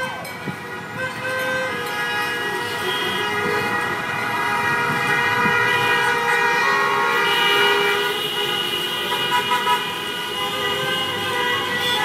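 Many car horns honking at once in long, overlapping blasts at several different pitches, over passing traffic, a little louder from about halfway through. Drivers are honking in support of a roadside protest that asks them to honk.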